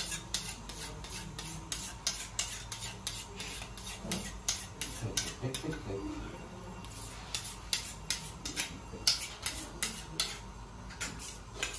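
A large kitchen knife being sharpened by drawing it against another knife's blade: quick metal-on-metal scraping strokes, about three a second, with a short lull about six seconds in.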